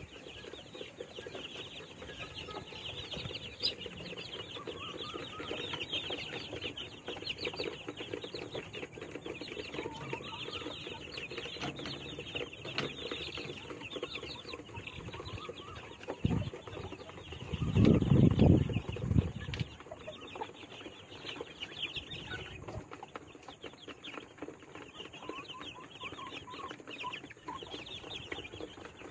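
A flock of young chickens cheeping continuously, many short high peeps overlapping. About seventeen seconds in, a loud low rumbling noise lasts about two seconds, with a shorter one just before it.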